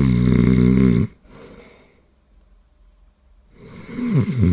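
Loud, deep snoring: one long snore ends about a second in, a faint breath follows, and a second snore starts about three and a half seconds in. Each snore slides down in pitch at its start, then holds a steady low drone.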